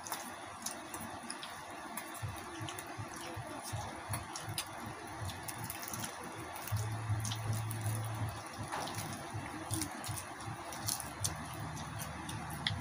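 Cooked pork head being pulled apart by bare, greasy hands: wet squishing and tearing of meat and skin off the bone, with many small clicks and pops.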